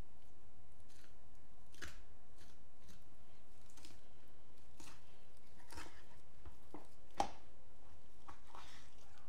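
Knife cutting raw chicken thigh meat off the bone on a plastic cutting board: soft, irregular slicing sounds and taps of the blade on the board, the sharpest tap a little past seven seconds in.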